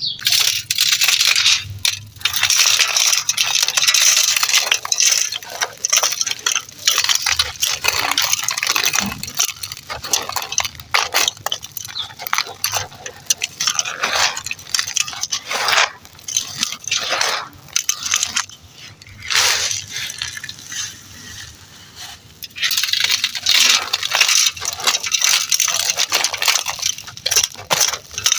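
Dry, gritty floor material being crumbled and crushed, a dense run of crunching and crackling with many small sharp snaps. The crunching eases off for a few seconds past the middle, then comes back thick near the end.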